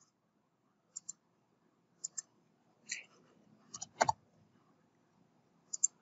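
Computer mouse and keyboard clicks: short paired ticks of a button pressing and releasing, about once a second, with a louder click about four seconds in.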